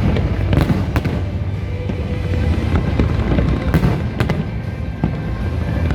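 Fireworks bursting in quick succession, sharp bangs and crackles over a continuous low rumble, with music playing alongside.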